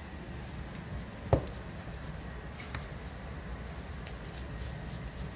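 Kitchen knife slicing through a stack of nopal cactus pads held in the hand: a run of small crisp cuts over a low steady hum, with one sharp knock about a second in.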